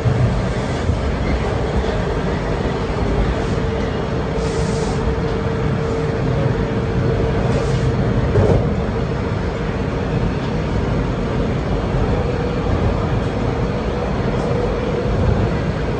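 Toronto TTC T-1 subway train running between stations, heard from inside the car: a steady rumble of wheels on track with a faint steady whine, and a single knock about halfway through.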